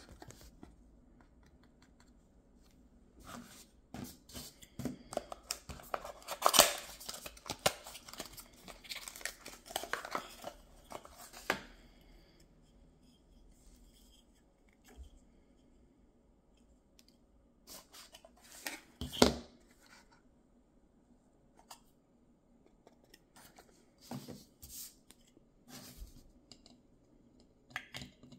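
Hands opening a toy blind box: a dense run of tearing, rustling and crinkling for several seconds, then quieter handling of the small plastic pod. There is one sharp snap about two-thirds of the way through, and a few light plastic clicks near the end as two hexagonal plastic pods are fitted together.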